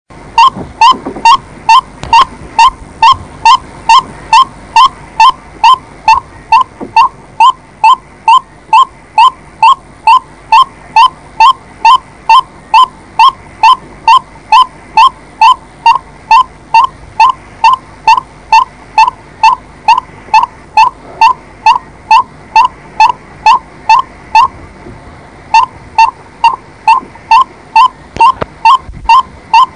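White-breasted waterhen calling: one short note repeated over and over, about twice a second, with a brief break near the end.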